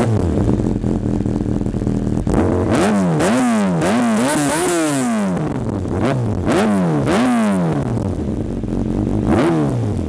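Kawasaki Ninja ZX-6R's inline-four engine, heard through a Yoshimura carbon-fibre slip-on exhaust. It idles steadily, then from about three seconds in it is revved in a run of quick throttle blips, each rising and falling in pitch.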